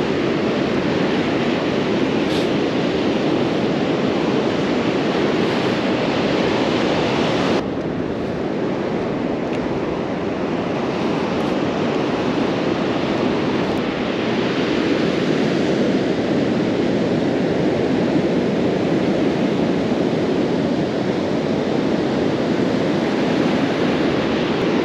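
Ocean surf breaking and washing up a sandy beach: a steady rushing noise. Its higher hiss drops away suddenly about seven and a half seconds in.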